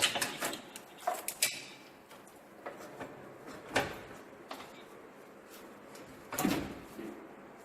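Scattered sharp clanks and knocks of tools and metal parts being handled around a car's engine bay, a few in quick succession at first, then a longer rattle about six and a half seconds in.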